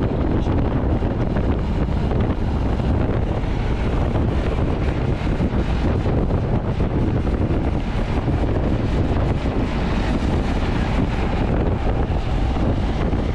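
Wind buffeting the microphone at highway speed on a Royal Enfield Hunter 350, its 349 cc single-cylinder engine and exhaust running steadily underneath.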